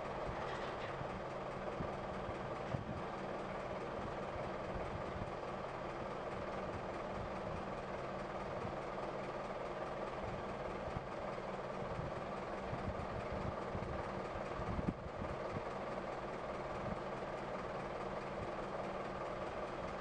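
Engines of heavy asphalt-paving machinery running steadily, with a single sharp thump about fifteen seconds in.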